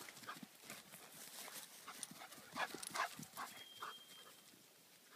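Portuguese water dog galloping on grass: a run of quick, uneven paw thuds that comes in strongest in the second half before fading.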